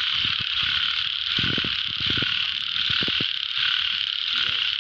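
Dense, unbroken chorus of many calling narrow-mouthed frogs (Thai อึ่ง), with soft, irregular rustles and knocks of a hand moving through wet leaf litter.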